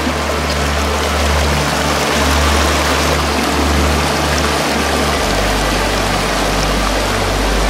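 Shallow mountain stream running over rocks, a steady rush of water, with soft background music of low held notes underneath.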